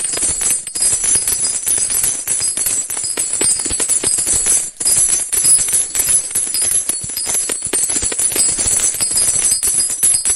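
Coins jingling and clinking together in a dense, continuous stream of small metallic clicks, with a brief break about four and a half seconds in.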